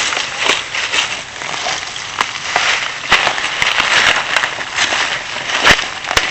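Dry leaves and brush rustling and crackling, with many irregular sharp snaps.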